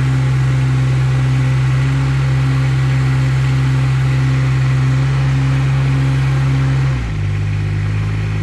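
Heavy tree-service machine's engine running steadily at a constant speed, then dropping to a lower speed about seven seconds in.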